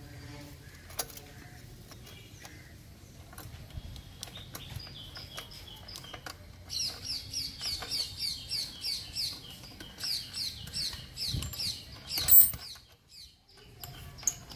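Scattered light metallic clicks of a spanner working an exhaust hanger bolt, then a small bird chirping in a fast, even run of short high falling notes for several seconds. A single loud clank comes near the end.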